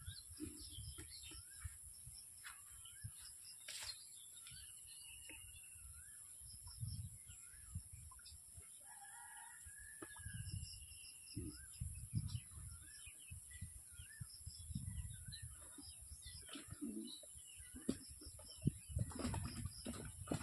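Village birds: a rooster crowing, with small birds calling a short wavering phrase again and again. Faint low rumbles come and go, growing stronger near the end.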